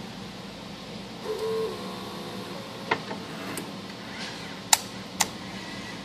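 Biotage Robot Sixty autosampler arm on the Initiator microwave synthesizer moving: a motor whines briefly about a second in, then a few sharp mechanical clicks follow, the loudest near the end, over a steady low hum.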